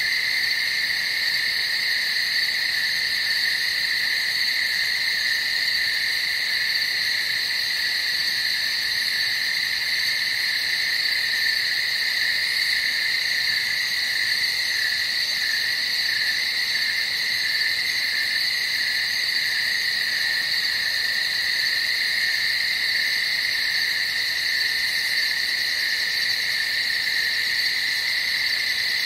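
A steady night chorus of many small calling animals: a continuous high-pitched drone in two pitches, unbroken, with a slight wavering in the lower pitch around the middle.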